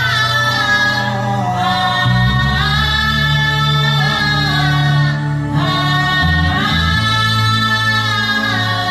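Wordless worship humming: a voice holding long, slow melodic notes that glide from one pitch to the next, over steady low accompanying notes that change every few seconds.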